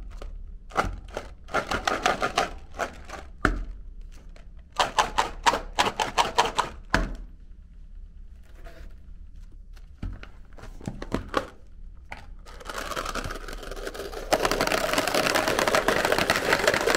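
Plastic tubes of small chocolate-coated candy balls handled, giving short bursts of clicking and rattling. From about twelve seconds in, the balls pour out into a clear plastic tray as a dense, continuous clatter that gets louder a couple of seconds later.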